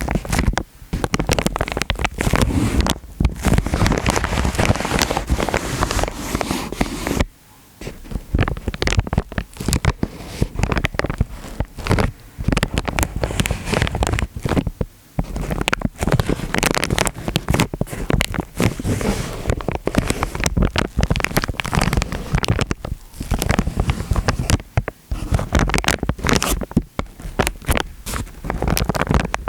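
Water sloshing and gurgling close to the microphone, with a crackly texture, stopping briefly a few times, about seven and fifteen seconds in.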